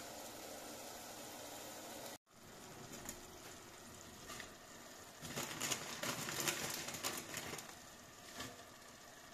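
A pot of tomato and onion sofrito simmering with a steady hiss. After a sudden cut, handfuls of fresh spinach leaves rustle and crackle as they are dropped by hand into the hot pot, loudest around the middle.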